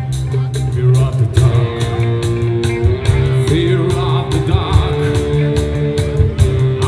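Live rock band playing loud amplified music: electric guitars through Marshall amps over a drum kit, with cymbals struck in a steady beat.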